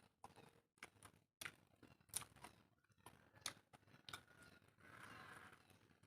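Faint, crisp crunching of a person chewing a crunchy fried fish head, as a string of irregular sharp cracks.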